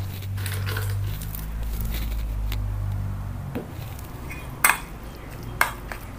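Metal spoon clinking against a stainless steel mixing bowl a few times in the second half while stirring a flour-and-squid filling, over a low steady hum that fades out about halfway through.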